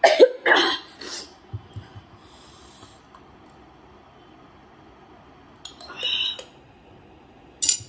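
A woman coughing and snorting behind her hand, reacting to the heat of spicy garlic noodles: a few quick, loud bursts in the first second or so, then a short hissing breath about six seconds in.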